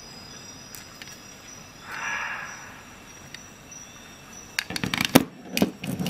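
Stainless-steel Victorinox SwissTool multi-tools being handled, with a soft rustle about two seconds in and then a quick cluster of metal clicks and clacks near the end as the tools knock against each other and the desk.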